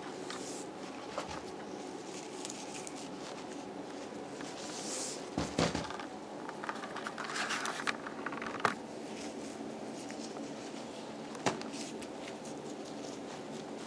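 Paper gift bag rustling and crinkling as cats nose and paw at it, with a few sharp knocks, the loudest a little past halfway, over a steady low hum.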